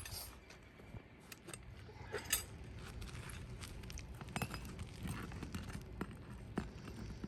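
Scattered light clicks and scrapes of a metal roofing tool worked under brittle roof shingles to pull a nail, with a brief louder scraping crackle about two and a half seconds in.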